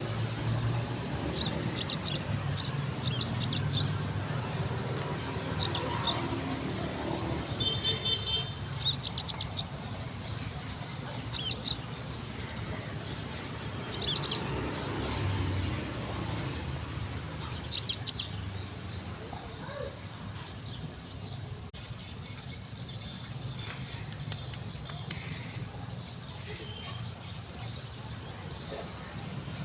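Small birds chirping in short clusters of quick notes, repeating every few seconds for most of the stretch, over a steady low background rumble.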